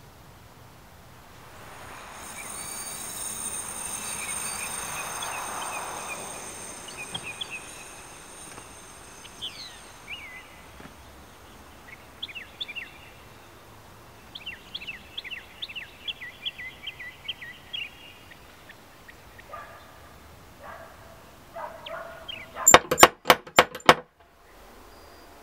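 A metal ring door knocker rapped against a wooden front door about six times in quick succession near the end, the loudest sound. Before it, birds chirp on and off, and a few seconds in a broad rushing sound swells up and fades away over several seconds.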